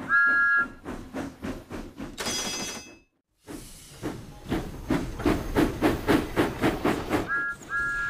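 Steam-train sound effects: a two-note steam whistle toots at the start, then a regular chuffing rhythm of about four or five beats a second that breaks off for a moment about three seconds in and resumes, with two more short whistle toots near the end.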